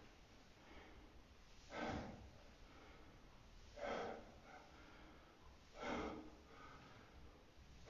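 A man breathing hard under exertion, a short forceful exhale about every two seconds, one with each squat.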